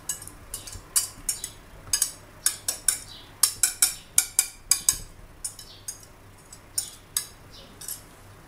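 Metal wire whisk clinking and tapping against a ceramic baking dish while stirring liquid sauce, in quick irregular clinks that thin out after about five seconds.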